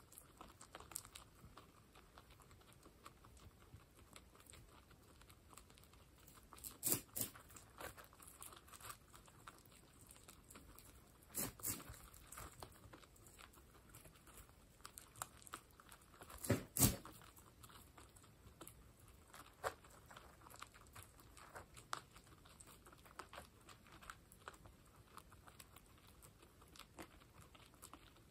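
Guinea pigs crunching and chewing dry pellets, a steady patter of small crisp clicks. Three louder double clicks stand out, spread through the stretch.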